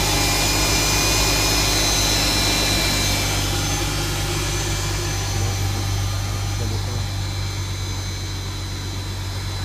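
Mercedes-Benz M272 V6 petrol engine idling shortly after a cold start, running evenly with no knocking or other extra noise yet. A faint high whine fades out after the first few seconds.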